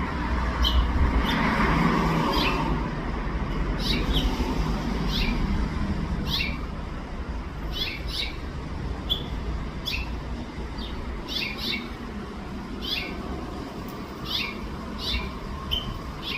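House finches giving short, sharp chirping calls, often in pairs, about one or two a second. A steady low background rumble runs underneath and is louder in the first few seconds.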